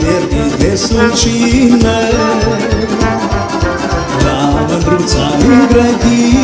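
Live Moldovan folk dance music from a wedding band: a man singing into a microphone over trumpet and brass, with a quick steady drum beat.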